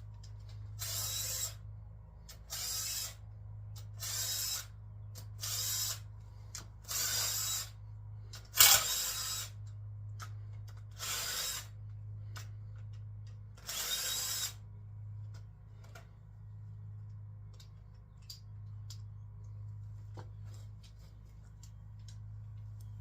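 Ratchet wrench worked in short bursts, about eight in the first fifteen seconds, backing out the rocker arm bolts on a GM 6.0 LS V8 cylinder head, with one sharp metallic clank about nine seconds in. A steady low hum runs underneath.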